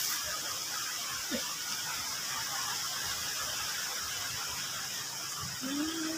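A steady high hiss of background noise, with a short pitched call starting near the end.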